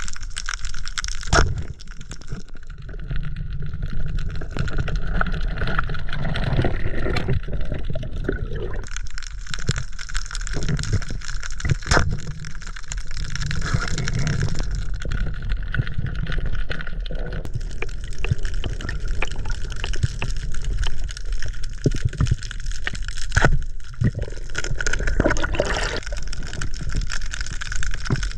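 Underwater sound picked up through a diving camera: steady rushing and gurgling water noise with scattered sharp clicks and knocks.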